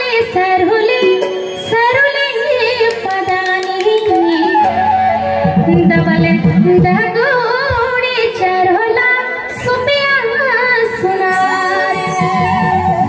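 A woman singing a Garhwali folk song with ornamented, gliding melody lines into a microphone, accompanied by keyboard and a dholak-style hand drum, with a run of quick drum strokes about halfway through.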